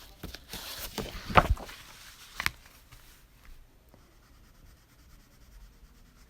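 Light shading with a coloured pencil on paper, a scratchy rubbing with two sharp knocks in the first half. The strokes grow faint after about three and a half seconds.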